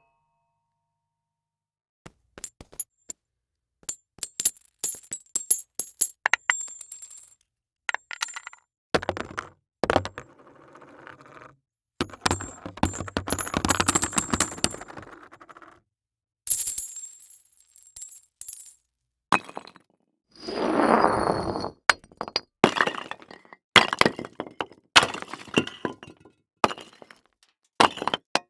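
A run of separate library impact sound effects, one after another: sharp knocks, clinks and cracks, several with a high metallic ring, and a few longer crashing hits. It starts after a couple of seconds of silence.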